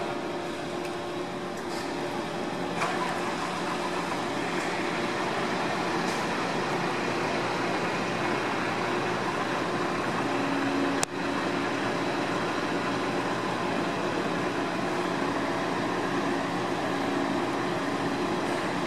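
Diesel engines of a Renault Midlum and a Scania P400 fire engine idling steadily, with a short sharp click about eleven seconds in.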